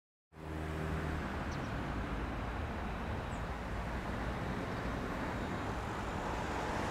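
Steady outdoor traffic rumble that cuts in abruptly after a moment of silence, with two faint high chirps.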